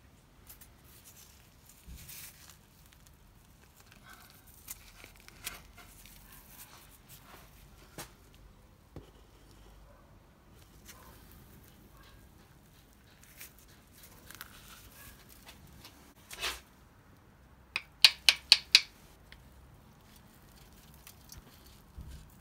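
Hands and a screwdriver picking at a crust-caked thermostat housing on an engine that is not running: scattered small scrapes and knocks. Near the end comes a quick run of five sharp clicks, the loudest sounds.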